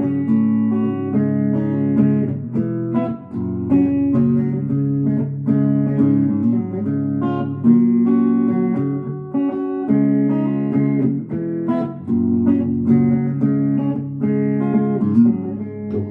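Swender Pinecaster guitar being played: a picked passage of chords and single notes, each struck sharply and ringing on, with no singing.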